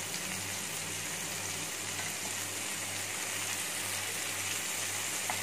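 Marinated chicken tikka pieces shallow-frying in a little oil in a non-stick pan over a gas flame: a steady sizzle with a low, steady hum underneath.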